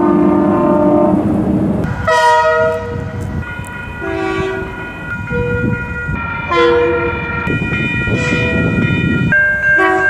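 Locomotive horns sounding a series of multi-tone blasts, several in a row and changing from one horn to another, over the low rumble of a passing train.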